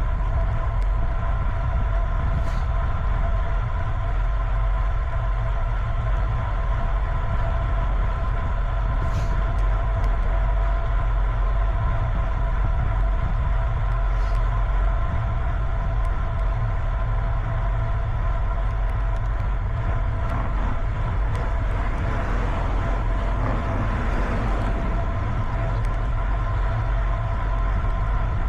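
Steady rumble and road noise of a ride in motion, with a constant whine of several even tones throughout.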